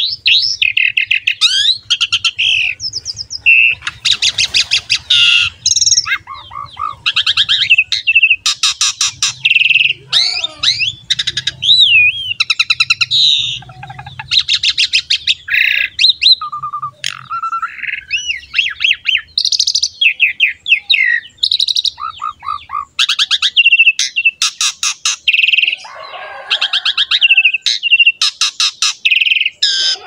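Asian pied starling (jalak suren) in full, continuous song: a loud, varied run of whistles sliding up and down, fast trills and chattering repeated notes, broken only by short pauses.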